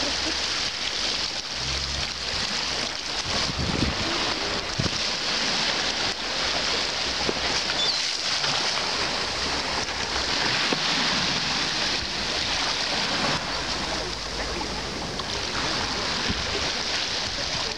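Small sea waves lapping and splashing against a stone embankment, with a continuous wash of water and foam. Wind rumbles on the microphone at times.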